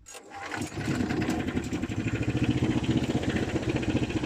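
A fishing boat's engine running with a rapid, even beat; it rises in over the first second and then runs steadily.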